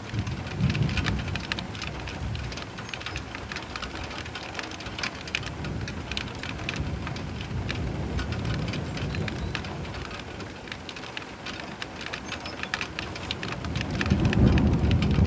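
Steady rain pattering on a surface, with low rolling thunder swelling up three times, loudest near the end.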